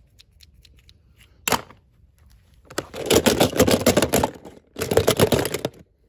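Toy packaging being handled and opened: a few light clicks, a sharp crack, then two stretches of dense plastic crinkling and crackling.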